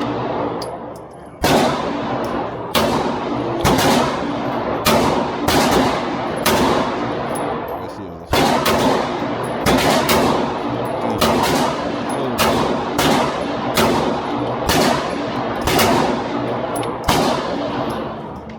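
About fifteen shots from a .40-calibre Glock 23 pistol, fired at roughly one per second, with a short pause about seven seconds in. Each shot rings out in a long echo.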